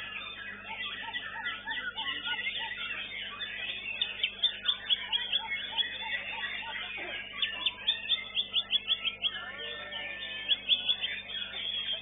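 White-rumped shamas (murai batu) singing in competition: a dense tangle of fast whistled phrases and chattering trills, broken several times by runs of sharp repeated notes at about six a second.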